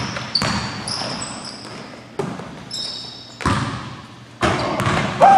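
Basketball bouncing on a gym floor: a few irregularly spaced sharp knocks, echoing in the hall, with short high-pitched sneaker squeaks on the court.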